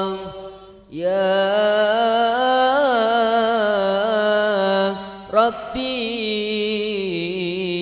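Male voices chanting an Arabic qasidah (sholawat), drawing out long melismatic notes on a held syllable, with a brief pause for breath near the start and another around five seconds in.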